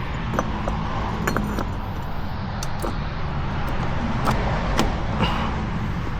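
Metal tools and parts clinking and tapping, a string of separate sharp clicks, over a steady low rumble.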